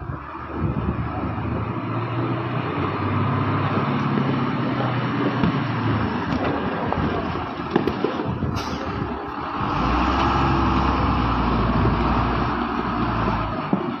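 Heavy diesel engine running steadily, then working harder and louder from about ten seconds in before easing off near the end, with a single sharp metallic knock about eight and a half seconds in.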